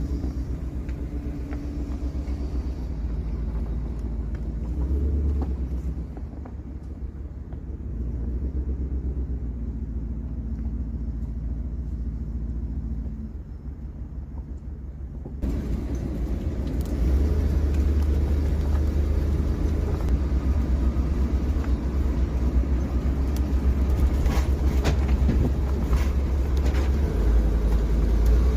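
Converted shuttle bus's engine running as the bus drives off, a steady deep rumble. About halfway through it becomes suddenly louder and brighter, with a few knocks near the end.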